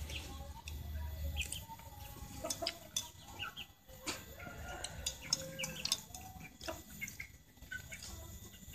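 Domestic chickens clucking on and off, with scattered short sharp clicks among the calls.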